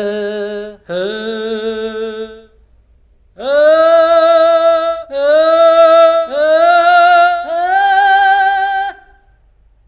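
Sampled solo voice from the Chronicles Bukhu Kontakt library singing sustained notes with vibrato, each sliding up into pitch: two notes, a short pause, then four longer, louder notes at a higher pitch.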